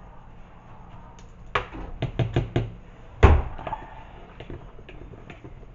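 Knocks and taps of household things being handled and set down close by: a quick run of taps about one and a half seconds in, one heavy thump about three seconds in, then a few lighter taps.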